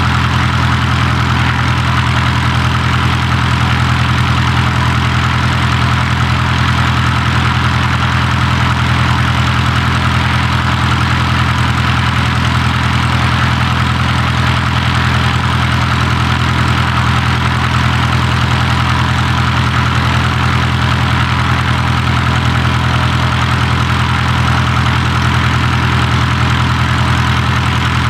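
Avid Flyer kit plane's engine idling steadily on the ground, with the propeller turning over at low speed and no change in pitch.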